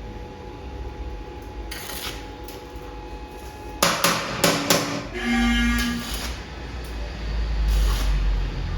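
A few sharp metal knocks in quick succession about four seconds in, as tools strike the steel gate and lock fittings, followed by a brief ringing tone, over a low steady hum.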